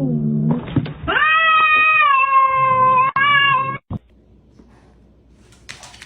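A cat's long, drawn-out meow, held for about three seconds, after a short lower call at the start.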